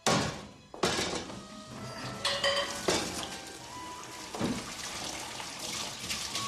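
Dishes and pans being washed by hand in a kitchen sink: crockery and pans clattering and knocking together about five times, some knocks ringing briefly.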